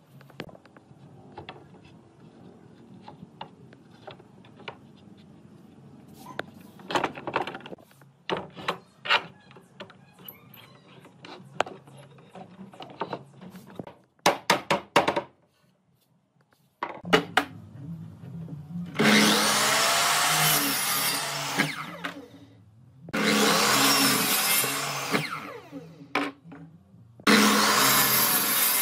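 A series of knocks and clicks on wood, then a power tool worked into wood in three runs of about three seconds each, with short pauses between.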